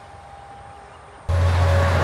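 Faint distant traffic noise, then, about a second in, a sudden jump to a loud, close heavy truck passing: a bonneted prime mover hauling a B-double, its engine giving a steady deep hum under heavy tyre noise.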